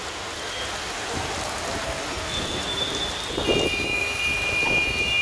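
Heavy rain falling on a street: a steady hiss of rain on the road surface. About three and a half seconds in, a steady high-pitched tone joins it.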